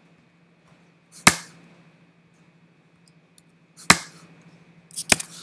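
Three sharp, single clacks of keys struck hard on a computer keyboard, about a second in, near four seconds and just after five seconds, as terminal commands are entered.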